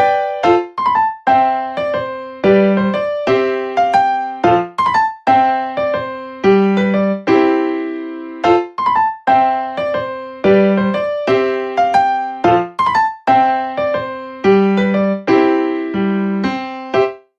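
Background music: a gentle electric piano piece playing a repeating pattern of notes.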